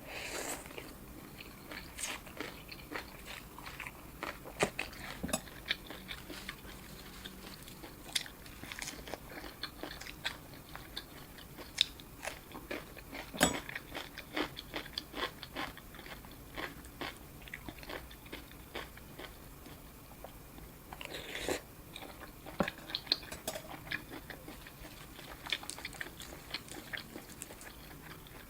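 Close-up eating sounds of boat noodles: irregular chewing and biting, heard as scattered short clicks and crunches.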